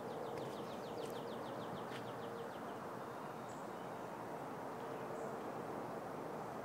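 A small bird singing a rapid trill of short falling notes, about eight a second, for the first two to three seconds, over steady outdoor background hiss and a faint low hum. Two faint high chips come later.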